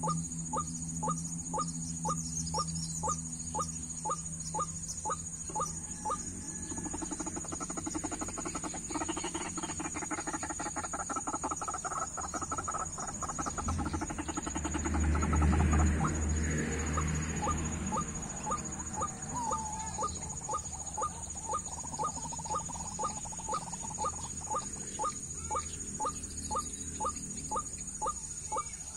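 White-breasted waterhen calling: a short clipped note repeated evenly about twice a second, the monotonous ruak-ruak call. A rougher noise swells through the middle, loudest about halfway, partly covering the calls.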